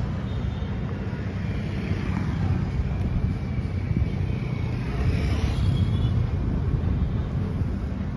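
Road traffic on a city bridge: a steady low rumble of passing vehicles that swells a little about five seconds in.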